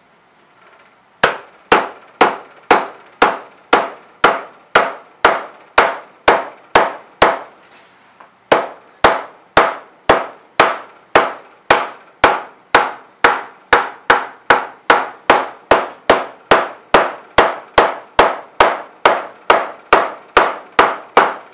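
Plastic-faced mallet hammer-forming the edge flange of a 0.025 aluminium wing rib over a form block, in steady downward strikes about two a second, each a sharp knock with a short metallic ring. The strikes pause briefly about a third of the way through, then carry on.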